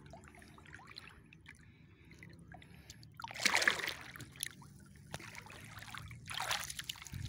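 Water splashing and sloshing as someone wades through shallow water, with two louder splashes, one about halfway through and one near the end.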